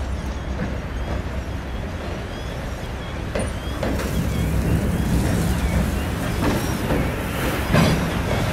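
Freight train of gondola cars being shoved slowly backwards over the rails: a steady low rumble with a few sharp clicks and clunks from the wheels, growing louder after about four seconds as the cars come closer.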